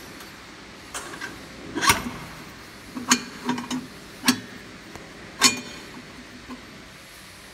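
Stainless-steel machine parts knocking and clinking against the steel hopper as they are fitted by hand: about seven short, sharp metallic clinks, loudest about two seconds in and again near five and a half seconds.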